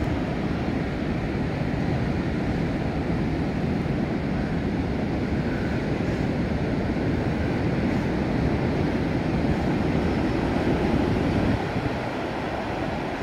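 Heavy ocean surf breaking and washing up the beach: a steady rushing noise of waves, with wind noise on the microphone. It drops a little in level near the end.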